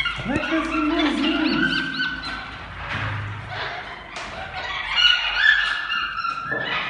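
Capuchin monkeys calling while feeding: several overlapping high whistles and short chirps, with a lower whining call near the start.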